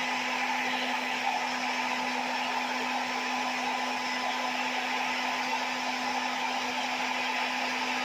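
Hair dryer running steadily: an even blowing hiss over a constant motor hum.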